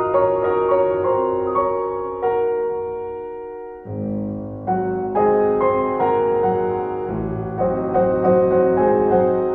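Background piano music: notes and chords struck and left to ring and fade, with one chord dying away before a fuller passage with lower bass notes comes in about four seconds in.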